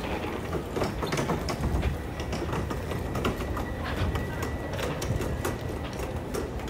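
Wheeled plastic bin carts rolling over a hard floor: a low rumble with irregular rattles and clicks.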